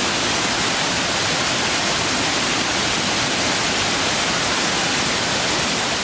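Steady rushing of water tumbling over a rocky cascade, an even hiss with no breaks.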